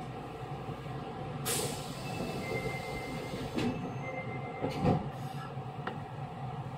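Interior sound of an Osaka Metro 66 series electric train: the steady hum of the car, with a short hiss about a second and a half in and a single thump near the five-second mark.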